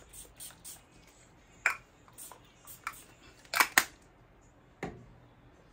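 A handful of quick spritzes from a fragrance spray bottle, each a short sharp hiss, the loudest two close together a little past the middle. A dull knock follows near the end.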